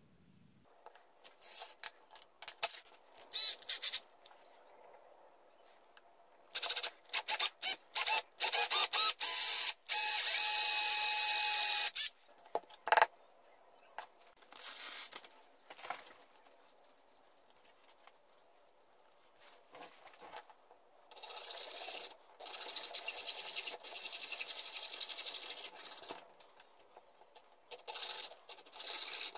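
Cordless drill boring into wood, first in short stop-start bursts and then in one steady run of about two seconds. Later, a fine hand saw cutting a small wooden dowel in quick back-and-forth strokes, with a few short scrapes and handling noises in between.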